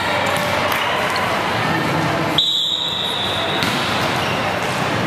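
Echoing din of a big hall full of volleyball matches: voices and the thuds of balls being hit, with a referee's whistle blown once for about a second in the middle, typical of the signal to serve.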